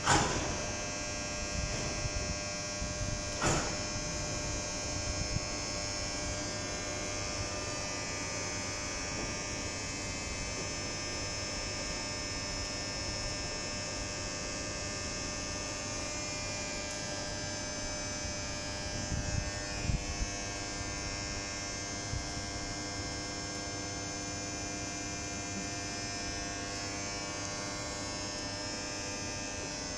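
Steady electrical hum of a stationary Intercités passenger train's onboard equipment, a mix of many fixed tones. A sharp click at the start and another about three and a half seconds in, with a few dull thumps around twenty seconds in.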